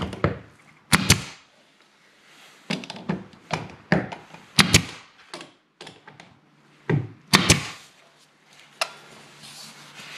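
Brad nailer firing brad nails into wooden trim: a series of sharp shots at uneven intervals, several in quick pairs.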